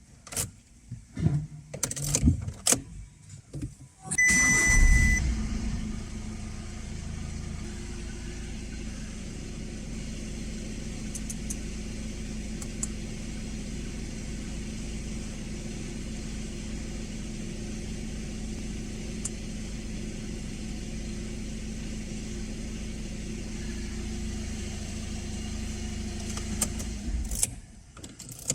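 A few clicks and knocks, then about four seconds in a car engine starts with a brief beep and settles into a steady idle.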